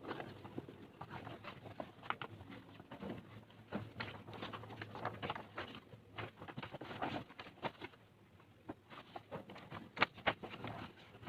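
Rustling, tapping and light knocks of packaging and boxset contents being handled, irregular throughout, with a short lull near the end and one sharper tap just before the end.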